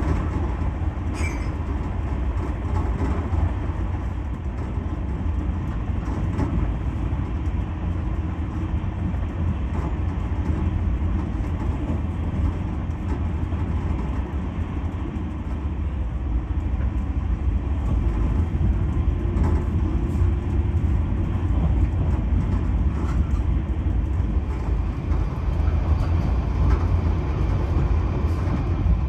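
Steady low rumble and rail noise of an LHB passenger coach running at speed, heard from inside the air-conditioned first-class sleeper compartment. Near the end a train passes close by on the adjacent track.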